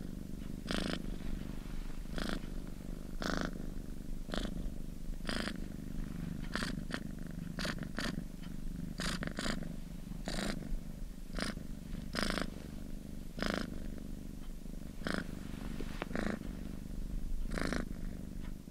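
Domestic cat purring steadily, a continuous low purr with a short airy pulse about once a second.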